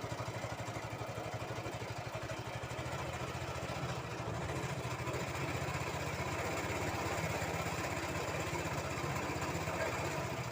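A small engine running steadily at idle, a fast even pulse that gets slightly louder about four seconds in.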